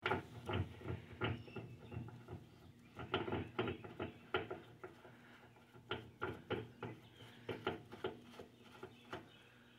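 Faint, irregular small clicks and scrapes of a threaded metal spacer being turned by hand into its fitting on a motorcycle's rear fender, spun finger tight. A faint steady hum lies underneath.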